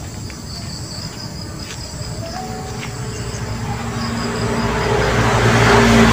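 Insects chirring steadily in the background while a motor vehicle's engine approaches, growing steadily louder through the second half and loudest at the end.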